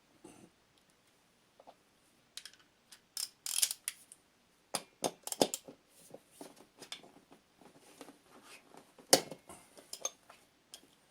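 Scattered metal clicks and clinks of a hand wrench working on the Stihl BR 600 blower's engine as a nut is broken loose, with one sharper click about nine seconds in.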